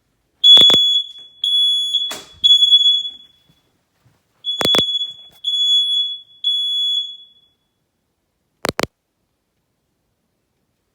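First Alert smoke detector sounding its high-pitched temporal-three alarm: three beeps, a pause, three more beeps, then it stops. It is going off with no apparent cause, which the owner suspects is a malfunction. Sharp clicks sound four times, the last one after the alarm has stopped.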